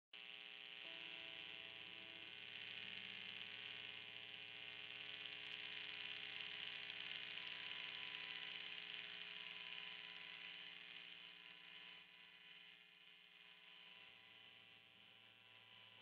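Low, steady electric hum and hiss from a guitar amplifier with an electric guitar, a Squier Telecaster Thinline, plugged in and not being strummed.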